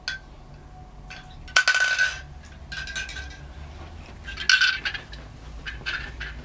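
Handheld plastic baby toy rattling with a jingly clink, in two short shaken bursts and a few lone clicks.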